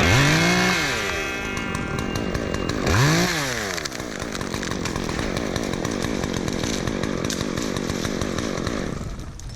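Gas chainsaw blipped up to speed and back twice, about three seconds apart, then held running steadily at high speed, dropping away near the end.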